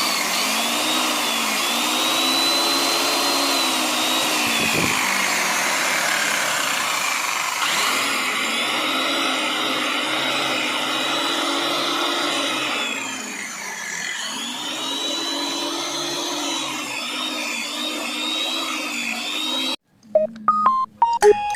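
Electric motor of a wood-cutting power saw running with a high whine, its pitch sagging and recovering several times; it cuts off abruptly near the end, and short music notes follow.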